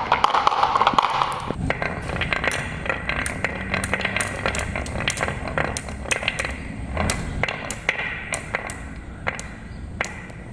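Marbles rolling down a wooden marble run. There is a dense rolling rumble for about the first second and a half, then many scattered clicks and clacks as they drop and strike the track pieces.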